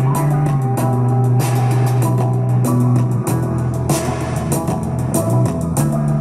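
Music with guitar, bass and drums playing through a small HP DHE-6002 USB-powered soundbar, streamed over Bluetooth from a smartphone.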